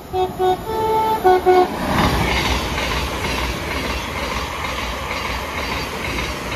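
Train horn sounding two short low notes, one longer higher note, then two more short low notes. A train then passes at speed with a steady rush and rhythmic wheel clatter over the rail joints.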